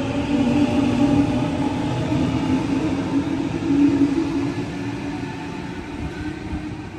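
Electric suburban train running through the station, a steady humming drone with higher tones above it that fades gradually over the last few seconds.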